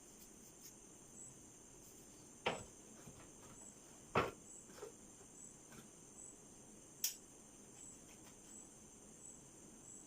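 Crickets chirping steadily, a pulse about every two-thirds of a second, with three sharp knocks of metal parts or tools being handled, the last a higher clink.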